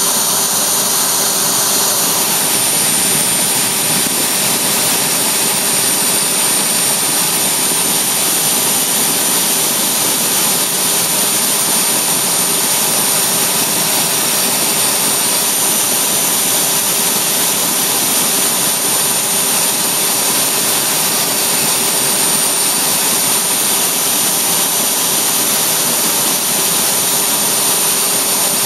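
DIY CNC router spindle running steadily, a constant high whine over a rushing noise, as a 3/32-inch bit machines a small hole in clear polycarbonate.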